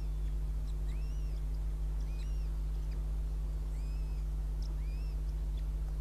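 Steady low electrical hum from the nest camera's audio, with short high chirping bird calls that rise and fall, about one a second.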